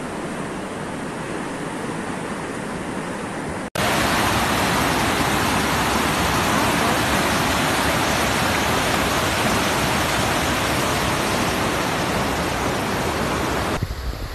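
Floodwater rushing through a street: a steady, even noise of fast-flowing muddy water. About four seconds in it cuts off sharply and returns louder and fuller, as the torrent is recorded close up, and near the end it cuts again to a quieter, uneven sound.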